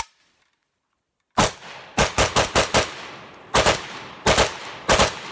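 Micro Draco AK pistol in 7.62x39 firing semi-automatic. A single shot comes about a second and a half in, then a quick string of about five, then shots in pairs, each loud crack trailing off in an echo.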